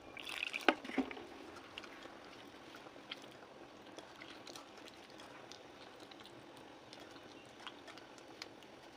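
Food frying with a faint steady sizzle and scattered small crackles. Two sharp knocks come in the first second.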